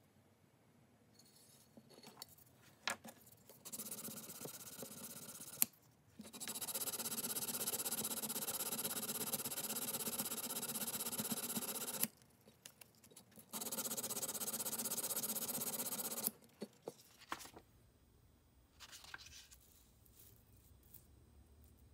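Abrasive paper rubbed by hand back and forth against the cast-iron side of a block plane, in three long stretches of steady scratchy rasping with short pauses between. Near the end, quieter clicks and rustles of sandpaper and tools being handled.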